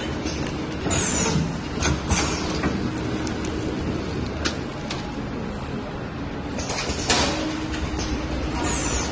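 Steady running noise of a paper-straw packaging machine, with scattered clicks and crinkles from a plastic-film bag of straws being handled.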